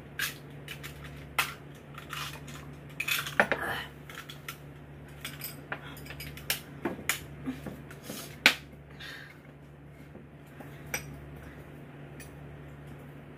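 Eating utensils clicking and clinking against bowls and plates during a meal: irregular sharp taps, the loudest about three and a half and eight and a half seconds in, over a faint steady low hum.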